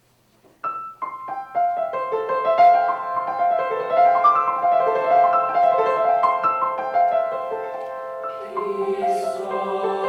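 Piano playing a run of quick separate notes, about three or four a second. Near the end a steady low sung tone joins in beneath them.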